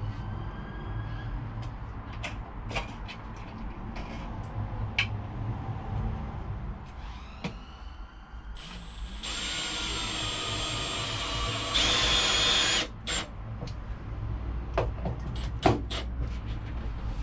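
Power drill driving screws: a few short trigger spin-ups, then the motor whines steadily for about three and a half seconds, louder for its last second before stopping. Scattered clicks and knocks of handling come before and after.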